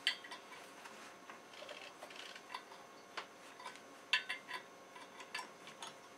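Faint, irregular light metallic clicks and ticks of a wrench and fittings being worked while tightening parts on an electric chainsaw.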